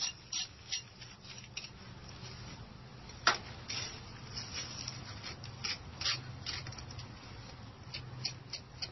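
A hand tool scratching and clicking irregularly against a stone-veneer wall, with one sharp click about three seconds in, over a low steady hum.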